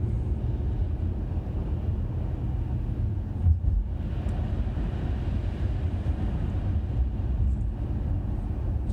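Steady low road and engine rumble inside the cabin of a moving 2017 Honda Accord V6, with one brief thump about three and a half seconds in.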